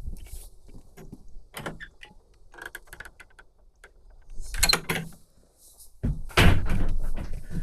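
Knocks and clatter of things being handled, with a short rushing scrape midway and a louder, longer scraping rush about six seconds in.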